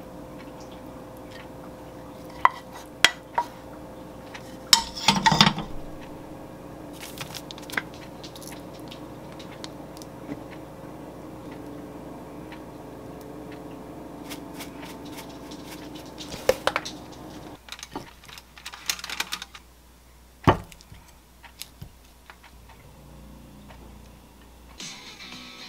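Kitchenware clatter as a wooden spatula scrapes and knocks food from a frying pan onto a ceramic plate: scattered clinks and taps, with a burst of scraping about five seconds in. A steady hum runs underneath and cuts off about two-thirds of the way through.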